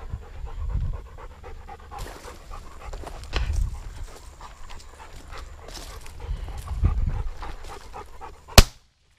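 A hunting dog panting as it moves through tall weeds. About eight and a half seconds in, a single shotgun shot goes off, the loudest sound, taken at a flying dove.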